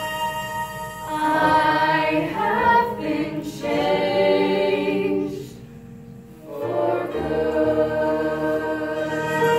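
Mixed youth show choir singing a song in harmony. The music drops away for about a second midway, then comes back in with a low part underneath.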